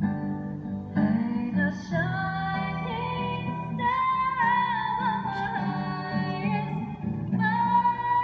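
A Christmas carol sung by a woman's voice with instrumental backing, in sustained, wavering notes that start a new phrase every few seconds.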